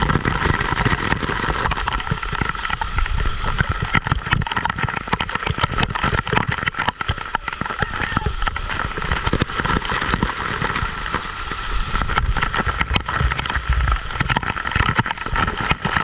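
Waterfall's steady rush of falling water, loud and unbroken, with a low rumble and constant splashing crackle.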